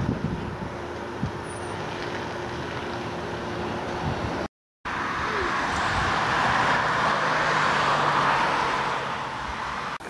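Outdoor background rumble and hiss of road traffic. It cuts out for a moment near the middle, then a rushing hiss swells over a few seconds and fades, as a vehicle passes.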